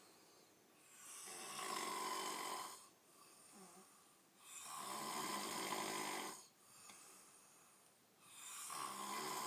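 A man snoring in his sleep after a few drinks of alcohol. There are three long, rasping snores, each about two seconds, coming roughly every three and a half seconds, with quieter breaths between them. The third snore begins near the end.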